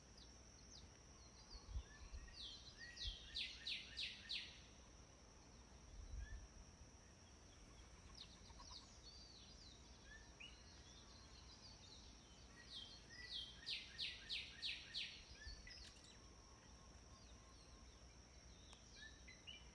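Wild birds calling in the morning: one bird gives a quick run of about six repeated notes twice, about ten seconds apart, with scattered short chirps from others. A steady high-pitched drone runs underneath, and there are a few faint low thumps.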